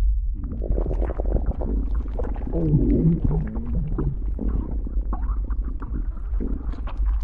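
Sound-effect rumble under a rough, crackling, creaking layer that comes in just after the start, with a few low wavering tones near the middle: the creature sound given to an animated giant serpent.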